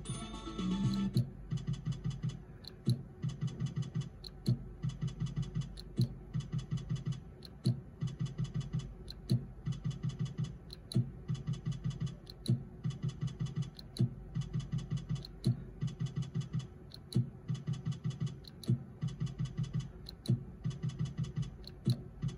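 Zeus Glory electronic slot machine spinning again and again. Each spin starts with a sharp click and ends in a quick run of short electronic ticks as the reels stop, about every one and a half seconds. A short run of stepped electronic tones about a second in.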